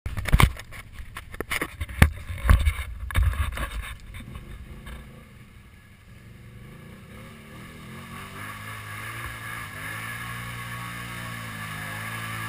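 Knocks and thumps against the mounted camera for the first few seconds. Then a Can-Am Outlander 650 ATV with an HMF exhaust is worked hard through a deep mud hole: its engine note rises and grows steadily louder as it comes closer, with water splashing.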